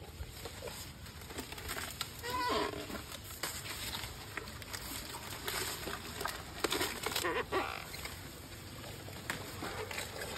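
Asian elephants chewing and crunching corn stalks, with leaves rustling and irregular snaps, busiest about two-thirds of the way in. A short animal call about two and a half seconds in.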